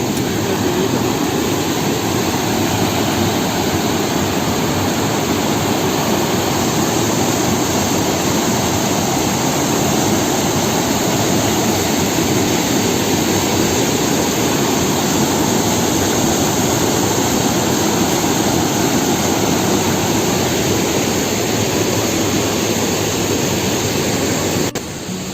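Waterfall water rushing, a loud, steady, even roar; it drops suddenly near the end.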